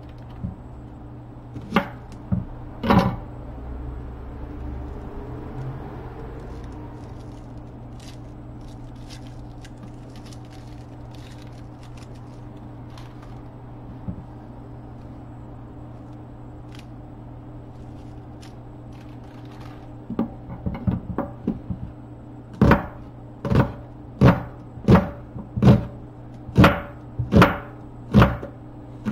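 Chef's knife cutting a red onion on a wooden cutting board: two knocks in the first few seconds, then, from about twenty seconds in, a steady run of chopping strokes on the board, about one and a half a second.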